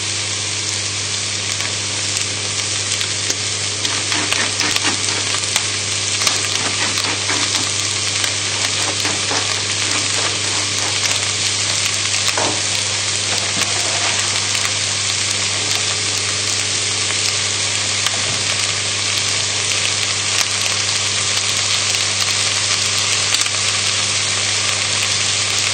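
Mushrooms, onion, carrots and garlic sizzling steadily in butter and oil in an enamelled cast-iron casserole pot, with scattered small crackles. A steady low hum runs underneath.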